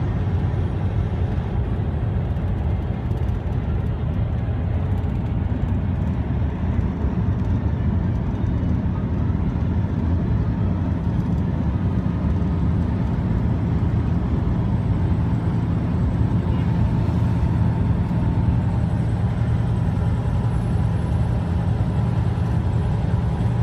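Steady engine and road noise inside the cab of a vehicle driving at highway speed, deep and unchanging.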